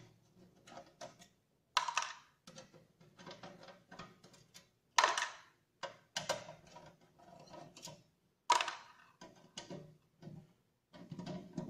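Screws being undone from a sheet-metal ATX power-supply casing: a run of small metallic clicks and scrapes, with several louder sharp clicks spread through.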